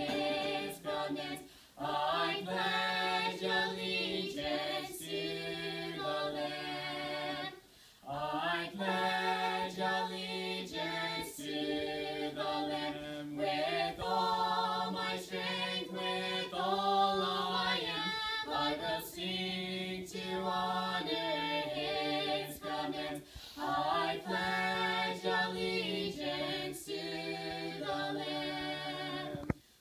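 Vocal trio of two women and a man singing a hymn in three-part harmony without accompaniment, held phrases with short breaks between them.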